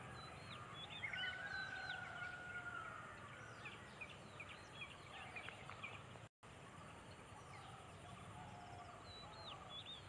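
Faint bird chorus from several birds: many short chirps and whistles, with a longer drawn-out call between about one and three seconds in, over a low steady background rumble. The sound cuts out briefly about six seconds in.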